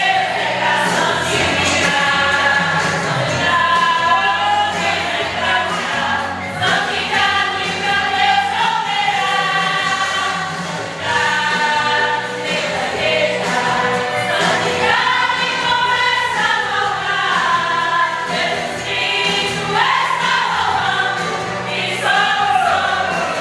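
A church vocal group singing a gospel song together.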